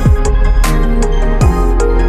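Electronic background music with a steady beat: deep kick drums that drop in pitch, sharp bright percussion hits and held synth notes.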